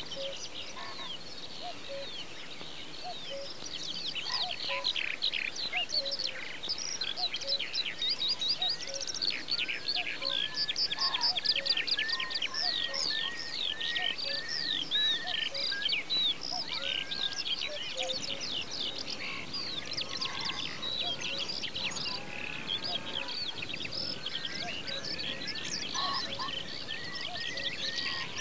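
Several songbirds singing at once: dense, rapid high chirps and trills, with one bird repeating a short whistled note over and over.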